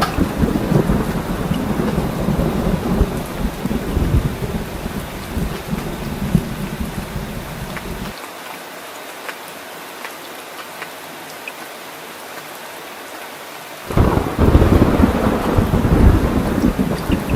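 Heavy rain with low rolling thunder rumbling. About eight seconds in the rumble cuts off suddenly, leaving only the steady hiss of rain, and it comes back just as suddenly a few seconds before the end.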